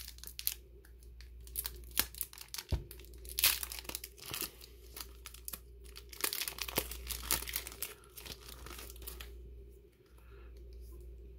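A trading-card booster pack's foil wrapper being torn open by hand and crinkled, a run of irregular sharp crackles that thins out near the end.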